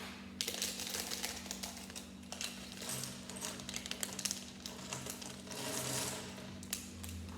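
Small plastic Lego pieces clicking and clattering as they are handled and snapped together, irregular light clicks with short stretches of rustling.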